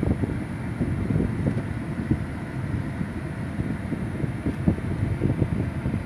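Wind buffeting the phone's microphone: an irregular low rumble that rises and falls in uneven gusts.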